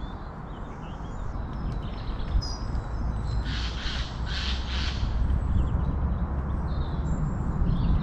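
A crow cawing three times in quick succession, harsh calls about half a second apart, over a steady low rumble and faint chirps of small birds.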